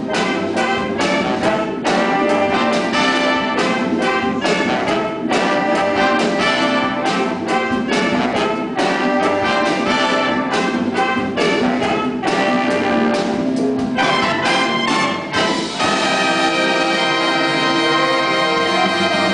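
A big band playing live: trumpets, trombones and saxophones over electric guitar and drums, in punchy rhythmic brass hits. Near the end the whole band holds one long chord.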